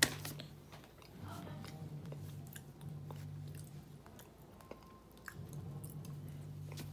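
A toddler chewing a date, with small mouth clicks, over a low hum that comes and goes. A sharp click sounds right at the start.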